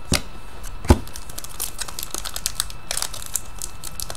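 Foil trading-card pack wrapper crinkling as cards are handled, with two sharp taps in the first second and light crackling after that.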